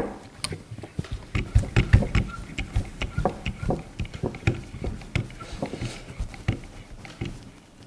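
Hand-pumped hydraulic crimping tool (Ericsson T2600) being worked. The pump handle makes repeated clicks and knocks, about two to three a second, as the die presses a copper C-sleeve onto spliced cables.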